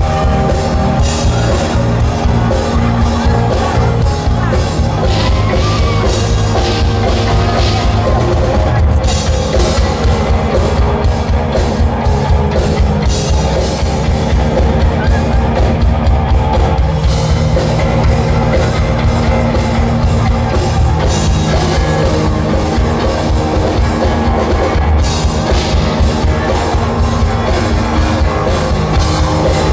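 Live rock band playing an instrumental stretch of a song: electric guitar, bass guitar, keyboard and a drum kit.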